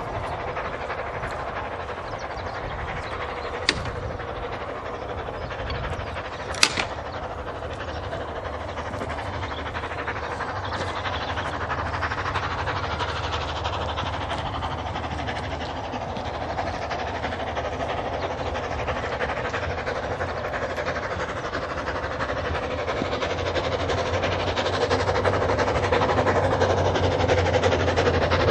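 Narrow-gauge steam locomotive Dolgoch, a small 0-4-0 well tank, running with its train of carriages, the sound steadily growing louder as it approaches. Two short sharp clicks sound a few seconds in.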